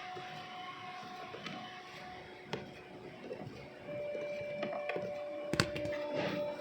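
Scattered small clicks and knocks of hand work on a car's dashboard as the instrument cluster is being opened, with one sharper click about five and a half seconds in. A faint steady tone runs underneath, and a second one joins about four seconds in.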